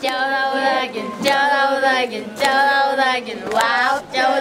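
A group of children singing together a cappella, in long held notes that break about once a second.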